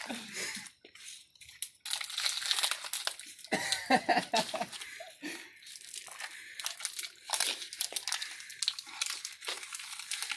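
A plastic water bottle crinkling and crackling in the hand as the water is downed in one go.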